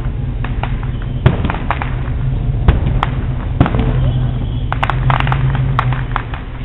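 Aerial fireworks shells bursting: scattered sharp bangs, with a quick cluster of crackling pops about five seconds in, over a steady low hum.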